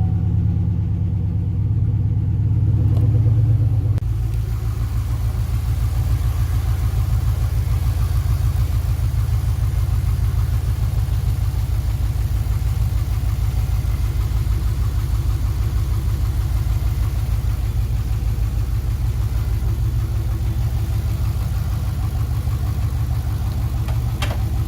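2007 Impala SS's 5.3-litre V8 idling steadily on fresh spark plugs and wires. It is a little louder for the first few seconds, then settles to an even idle with no sign of the earlier cylinder 6 misfire.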